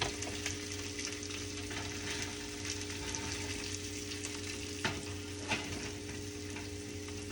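Eggs and a breaded chicken patty frying in butter in a pan, a steady crackling sizzle. Two sharp clicks about five seconds in, over a constant low hum.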